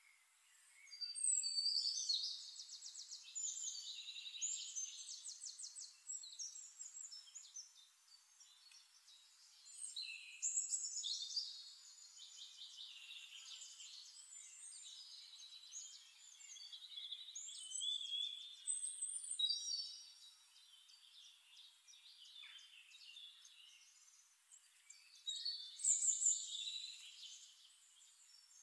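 Songbirds singing: phrases of rapid trills and chirps come in bursts a few seconds apart, loudest about two, eleven and twenty-six seconds in, over a faint steady hiss.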